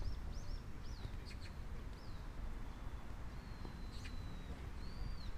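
A bird singing: a run of quick arched chirps, about three a second, through the first two seconds, then a long, thin, steady whistled note about three and a half seconds in, and more arched notes near the end, over a steady low rumble.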